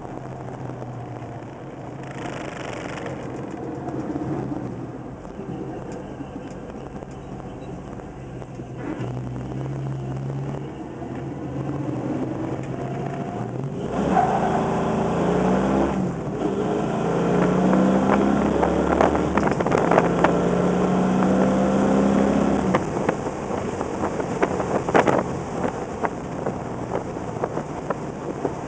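1969 Plymouth Road Runner's bored-out 440 V8 heard from inside the cabin while driving. About halfway through it gets louder under acceleration, its note climbing and breaking off several times as it is run up through the gears of the four-speed manual.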